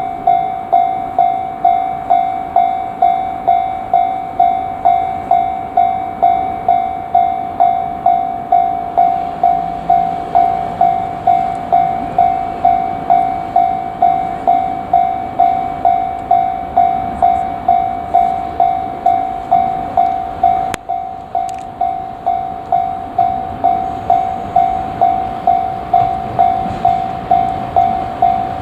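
Japanese level-crossing warning bell ringing over and over in an even rhythm, about one and a half dings a second, each ding fading before the next. Underneath is the low rumble of a freight train going through the crossing, and a single sharp click sounds about three-quarters of the way through.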